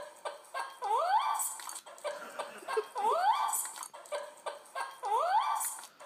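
Looped remix audio played through laptop speakers: a short rising yelp-like animal call with sharp clicks and a hissy burst, repeating in a steady rhythm about every two seconds, three times.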